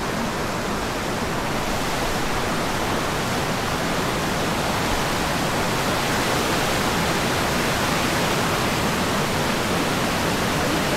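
Creek water rushing steadily over a small rock cascade, a constant even rush, swelling slightly louder a few seconds in.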